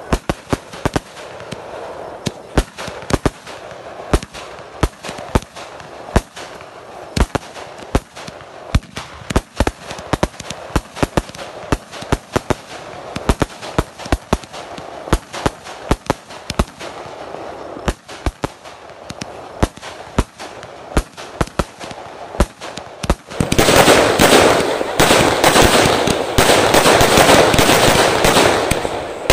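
Ground-launched aerial fireworks ('sky shots') firing, each shell giving a sharp bang, several a second and unevenly spaced. About 23 seconds in it gives way to a louder, dense barrage of crackling and bangs with hardly a gap.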